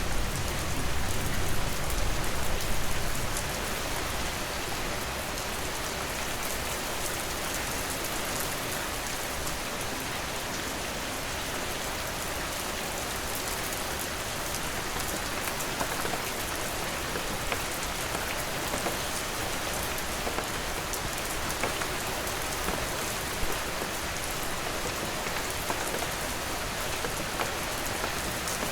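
Steady rain falling, a dense even hiss of drops on a surface. A louder low rumble sits under it for the first three seconds, then fades.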